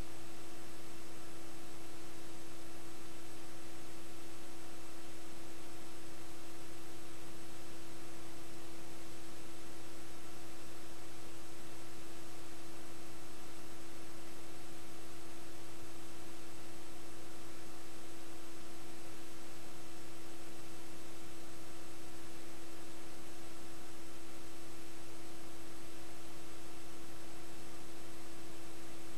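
Steady electrical hum, one mid-pitched tone with fainter fixed tones, over a constant hiss. There is no game sound: the recording carries no program audio, only its own noise.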